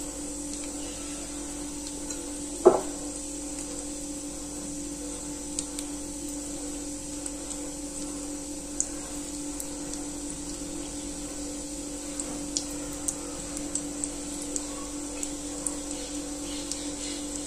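Besan pakora batter frying in hot oil in an aluminium kadhai, with small crackles and pops from about twelve seconds on as more batter drops in, over a steady low hum. One sharp knock about three seconds in is the loudest sound.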